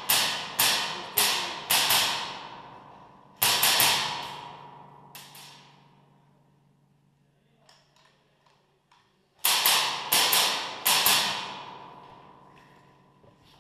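Airsoft rifle fired in quick single shots, a few a second, in three volleys: one near the start, one about three and a half seconds in and one about nine and a half seconds in. Each shot rings on in a long echo off the hard tiled walls.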